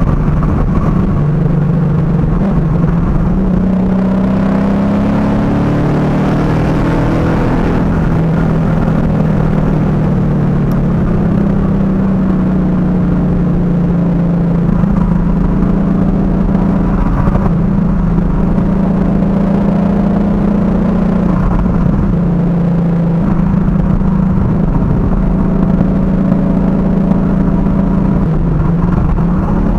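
Ford Mustang GT's V8 through a Borla aftermarket exhaust, heard from inside the cabin while driving. The engine note rises in pitch through an acceleration about four seconds in, then settles into a steady cruising drone with a few small changes in pitch.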